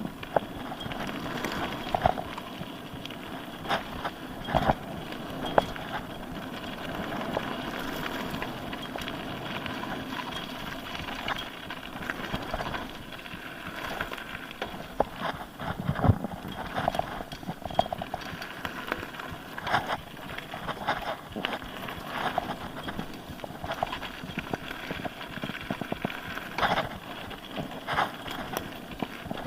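Mountain bike ridden fast over a rough dirt-and-rock trail: a steady rush of tyre and trail noise broken by frequent irregular knocks and rattles from the bike.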